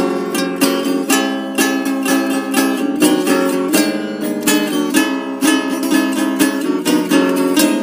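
Guitar and ukulele playing together, a quick, steady run of plucked notes.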